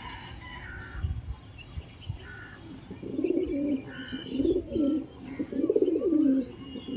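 Fantail pigeons cooing, a run of wavering coos starting about three seconds in, with faint higher chirps around them.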